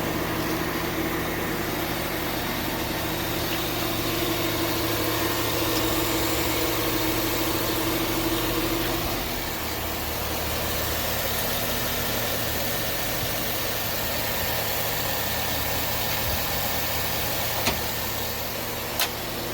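2008 GMC Yukon's 5.3-litre V8 idling steadily after its stuck lifter has been replaced with new lifters. Two short sharp clicks come near the end.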